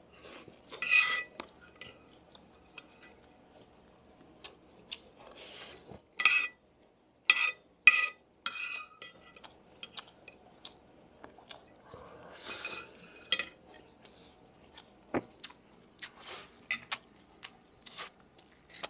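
Metal chopsticks and a metal spoon clinking and scraping against a ceramic plate as the last bits of food are gathered up. Several sharp, ringing clinks, loudest about a second in and again around six to eight seconds in, with lighter taps and scrapes between.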